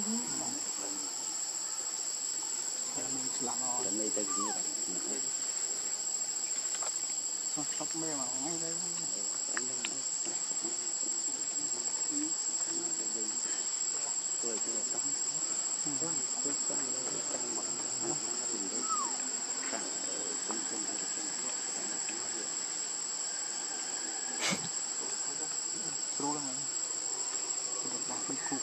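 Steady high-pitched chorus of insects, a continuous ringing drone, with one sharp click near the end.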